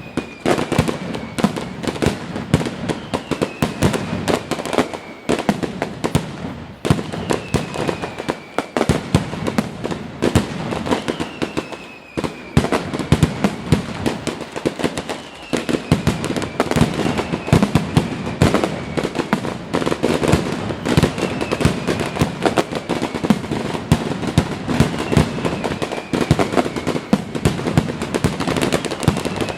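Aerial fireworks bursting in dense, unbroken succession: many bangs and crackles overlapping, with a short falling whistle repeating every couple of seconds.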